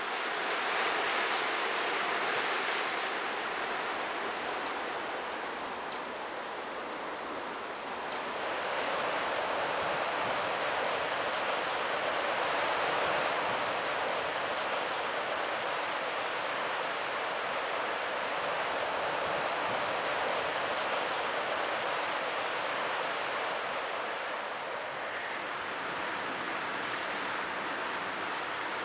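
Sea surf washing on a rocky shore: a steady rushing wash that swells and eases slowly. A few faint, high, short ticks come between about five and eight seconds in.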